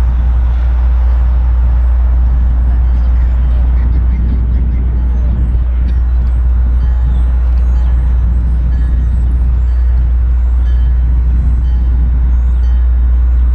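Distant diesel locomotive approaching slowly along the line, heard as a steady low rumble.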